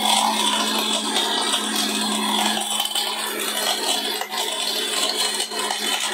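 Orpat mixer grinder running steadily, dried turmeric pieces rattling inside its stainless steel jar as they are ground to powder.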